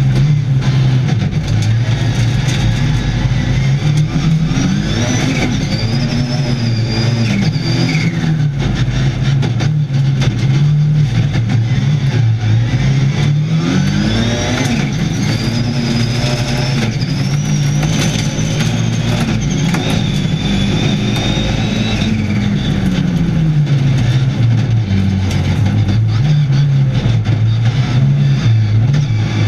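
Rallycross Supercar's turbocharged four-cylinder engine heard from inside the cockpit under race load, its revs repeatedly climbing and dropping through gear changes and corners, with many sharp crackles and knocks over it.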